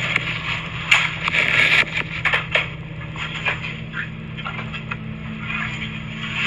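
Close rustling and scraping with scattered clicks and knocks, busiest in the first two seconds, as a person's clothing brushes right against the camera's microphone. A steady low hum runs underneath.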